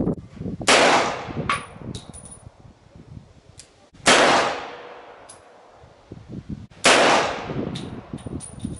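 Mauser C96 pistol fired three times, about three seconds apart, each shot a sharp crack with an echoing tail. Light metallic clinks come between the shots. The pistol is firing and cycling normally on 7.63 mm ammunition.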